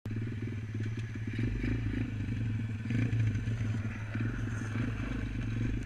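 BSE 140cc pit bike's single-cylinder four-stroke engine running at a steady, low speed as the bike rolls along, with light clatter from gravel under the tyres.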